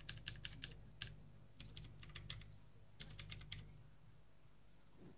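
Faint rapid clicking, like typing on a keyboard: a quick run of about seven clicks a second at the start, then short scattered runs that stop a little past halfway.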